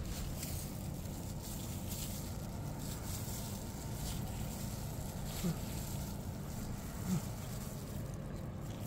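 Stray cats eating cat food, with faint crackles of chewing and rustling over a steady low background rumble. Two brief low sounds come about halfway through and again a second and a half later.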